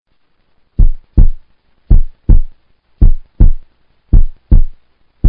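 Heartbeat sound effect: deep double thumps, lub-dub, repeating a little more than once a second, about four beats.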